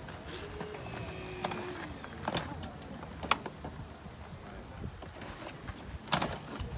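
A hydraulic rescue tool (jaws of life) working on a crashed car's door, with sharp metal snaps: two about a second apart near the middle and more near the end, over a faint low hum.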